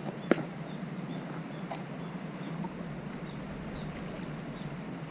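Steady low outdoor rumble with a constant hum, broken by one sharp click about a third of a second in and a fainter tick a little later.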